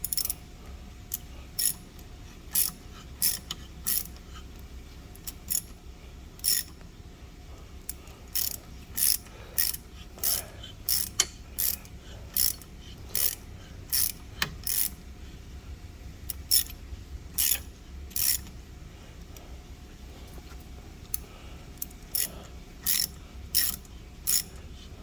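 Hand ratchet wrench clicking in short, separate clicks at an uneven pace of about one or two a second, as it is swung back and forth to turn a bolt or tap, over a low steady hum.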